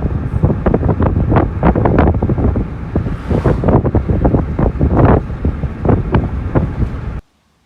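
Wind buffeting the microphone in loud, irregular gusts. The sound cuts off abruptly about seven seconds in.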